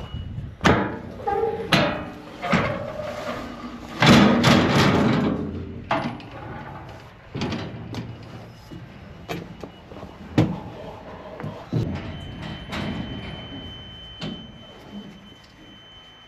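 Irregular knocks and clatter, the loudest a rattling, scraping stretch about four seconds in, with no engine running.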